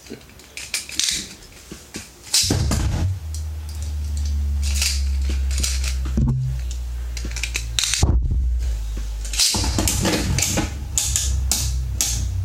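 A Beyblade spinning top launched about two seconds in, then spinning with a steady low whirring hum and scattered rattling clicks. The hum breaks briefly and picks up again near the end.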